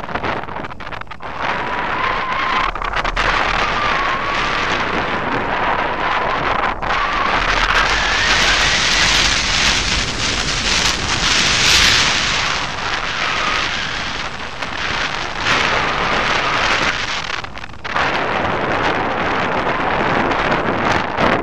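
Loud wind noise from airflow over the microphone of a camera mounted on a hang glider's wing in flight. It is stronger and hissier around the middle, with a faint wavering whistle running under it.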